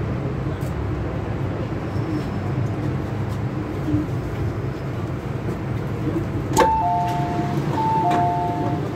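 MTR M-Train cabin rumbling steadily as the train pulls in. About six and a half seconds in there is a sharp clack as the doors release, then the train's door chime plays a falling two-note tone twice as the doors open.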